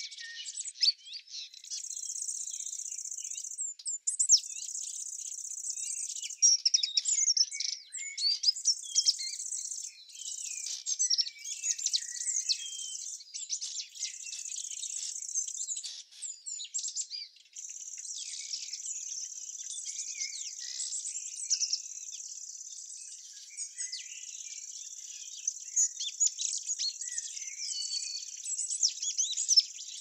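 Small birds chirping and calling in quick, overlapping bursts over a steady high insect trill that cuts out briefly a few times.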